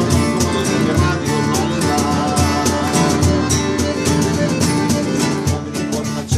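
Two acoustic guitars strummed together in a steady rhythm, playing a lively tune.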